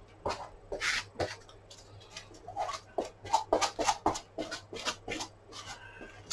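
Contact adhesive being spread over a flat board with a small hand-held spreader: a series of short scraping, rubbing strokes, coming faster and closer together in the middle.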